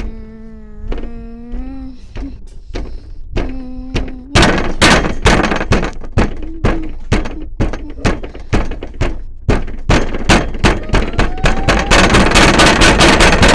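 Washing machine in its high-speed final spin: a steady motor whine, then from about four seconds in loud repeated knocking as the machine bangs and shakes, the knocks coming faster near the end.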